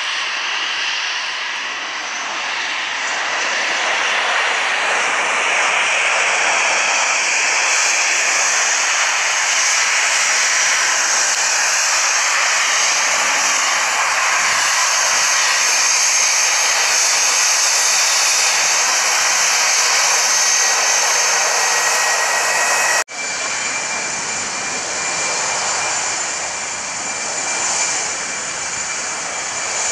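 Airbus A319 airliner's twin jet engines running, a steady roar with a high whine. About three quarters through the sound cuts off abruptly and starts again slightly quieter, with a different whine, as the airliner rolls along the runway.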